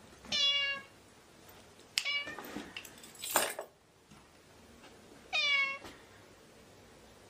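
Domestic cat meowing three times in short, clear meows, with a brief noisy burst between the second and third.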